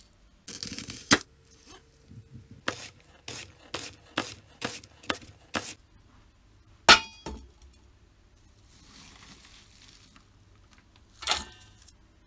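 A knife slicing an onion on a plastic cutting board: about eight sharp chops a little under half a second apart. Then a loud metallic clink with a short ring, and near the end another ringing clatter.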